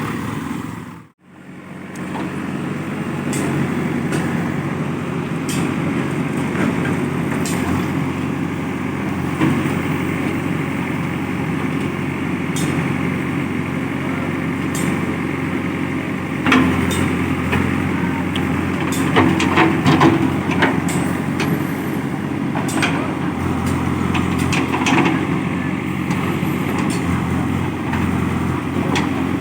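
Diesel engine of a JCB 3DX backhoe loader running steadily, with scattered clanks and knocks and a louder stretch of working for a few seconds past the middle. The sound cuts out briefly about a second in.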